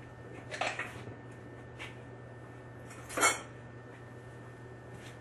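A few brief knocks and rustles, the loudest a short, sharp burst of noise about three seconds in, over a steady low hum.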